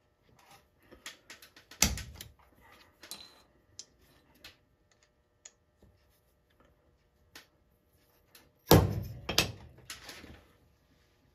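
Spring-loaded automatic center punch snapping once with a sharp click about two seconds in, marking the center of a small magnesium block. Small handling clicks follow, then two louder sharp knocks about a second apart near the end.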